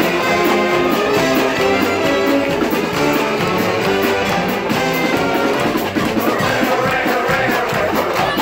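A Mummers string band playing together: many banjos strumming a steady beat, with saxophones carrying the tune over an upright bass.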